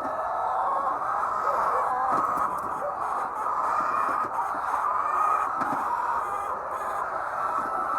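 A flock of hens clucking and calling together, many voices overlapping in a steady din.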